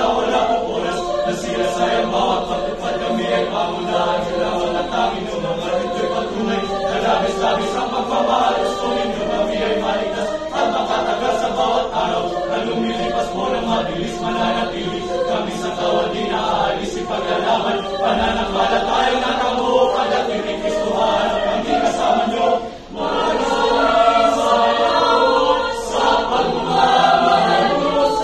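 Mixed choir of women's and men's voices singing together in harmony, with a brief break between phrases about three-quarters of the way through.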